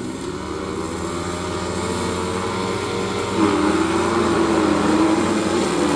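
Grasstrack motorcycle engine running under throttle, slowly getting louder, then rising in level about halfway through with a wavering pitch as the rider opens the throttle.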